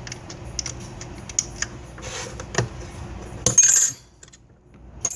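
Light metallic clicks and clinks of small parts and tools being handled on a repair bench, with one louder brief scrape or rustle about three and a half seconds in.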